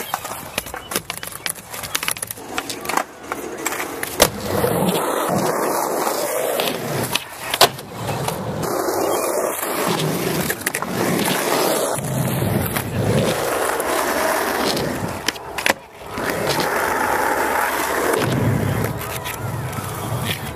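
Skateboard wheels rolling over asphalt and concrete, with a few sharp clacks of the board being popped and landed.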